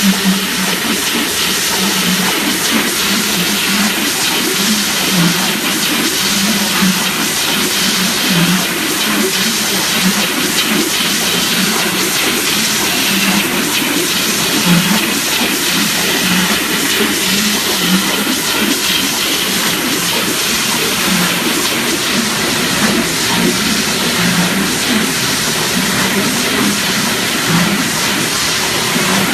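TZ-210 slitting machine running: a steady, loud mechanical hiss with a low hum that pulses about once a second.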